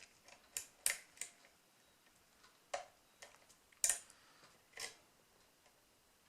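Small, sharp metallic clicks, about six spaced irregularly, from a lock pick and tension wrench working the pin tumblers of a rim cylinder lock.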